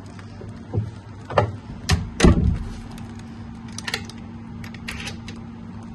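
A hotel room door and its brass chain guard being handled: a few knocks and clunks, the loudest about two seconds in, then lighter metallic clicks and rattles near the end.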